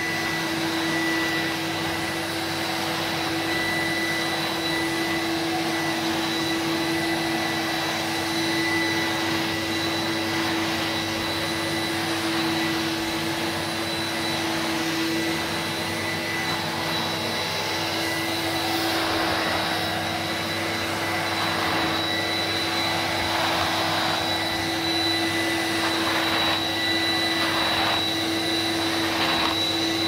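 Freshly refurbished Kerstar Max CD commercial vacuum cleaner running with a steady motor whine and rush of suction while its floor tool is pushed over a rug. In the later part the suction sound swells and fades in a regular rhythm, about once a second, with the strokes of the nozzle.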